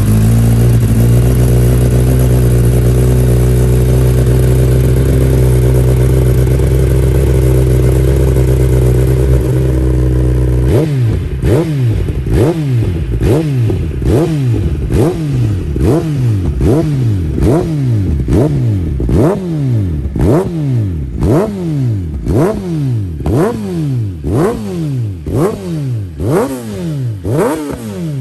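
A 2022 Kawasaki Ninja ZX-10R's inline-four, freshly started, running through a Graves titanium slip-on exhaust. It idles steadily for about ten seconds, then is blipped over and over, a little more than once a second, each rev rising sharply and dropping back.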